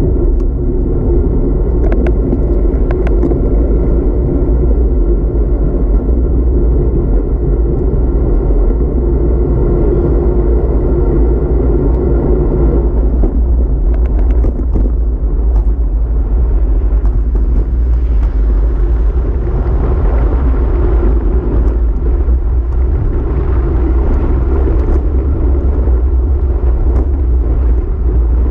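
Wind buffeting the microphone of a bicycle-mounted camera as a road bike rolls along, with the tyres' road noise on asphalt under it. A steady hum fades out about halfway through, and a few short clicks come early on.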